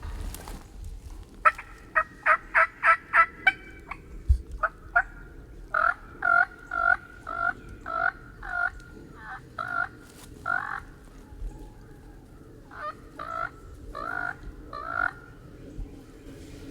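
Turkey yelping: a quick run of short yelps about a second and a half in, then slower, louder two-note yelps, and another short series near the end.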